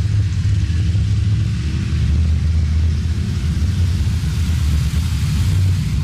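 Engines of classic cars cruising past on a street, a steady low rumble.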